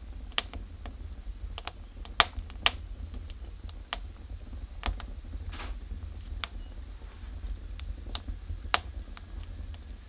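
Firewood logs burning in a Russian stove, crackling with irregular sharp pops, the loudest about two seconds in, shortly after, and near the end, over a steady low rumble.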